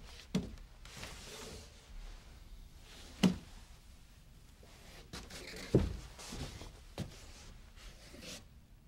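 Four sharp knocks, irregularly spaced a few seconds apart, with soft rustling and handling noise between them.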